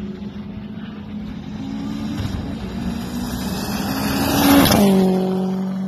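Car engine held at high revs as the car approaches, its note creeping up in pitch. It passes close by with a rush of noise about four and a half seconds in, then the note drops suddenly and fades as the car moves away.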